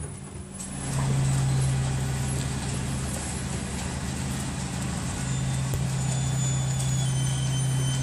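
Refuse collection lorry's engine running with a steady low hum, which gets louder about a second in, as its rear bin lift handles a wheelie bin.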